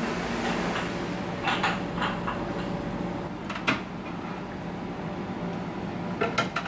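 A few light clicks and knocks from a plastic tub and metal chopsticks being handled at a kitchen counter, the sharpest a little before the middle and a cluster near the end, over a steady kitchen hum.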